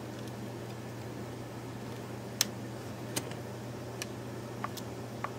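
A few short, sharp plastic clicks from the partly disassembled Canon VIXIA HF G30 camcorder's housing as it is gripped and worked apart by hand, the loudest a little under halfway through, over a steady low hum.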